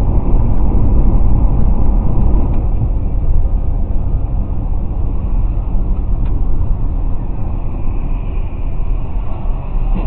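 Steady low road rumble of a car driving at highway speed, heard from inside the cabin: tyre and engine noise.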